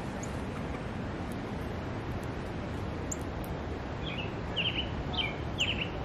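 Steady low outdoor background rumble. In the last two seconds a bird gives several quick clusters of short, falling chirps.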